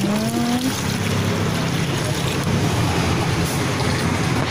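Rice water being poured from a plastic dipper into a plastic bucket: a steady splashing rush of liquid.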